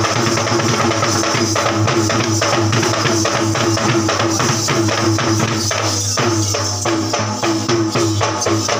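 Low-country Sri Lankan yak bera drums, double-headed and beaten with the hands in a fast, even stream of strokes, with a steady metallic jingle above them.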